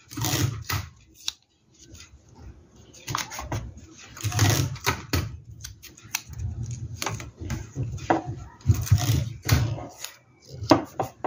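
Masking tape being pulled off and torn, with fabric rustling as hands press and tape it down onto an embroidery hoop: irregular ripping and rustling noises with soft handling bumps.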